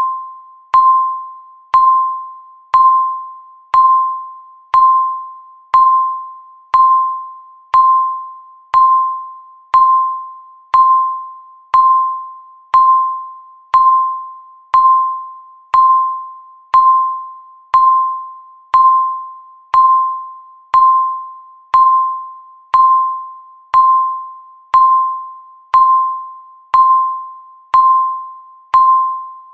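Countdown timer beeping once a second, each second marked by the same short electronic beep that starts sharply and fades away.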